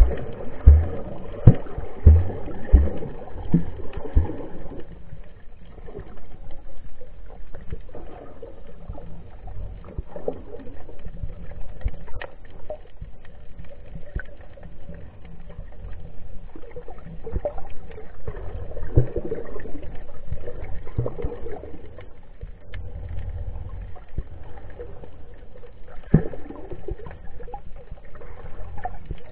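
Muffled underwater water noise from a submerged camera moving near the seabed: sloshing and gurgling, with irregular low thumps and knocks that come thickest in the first few seconds.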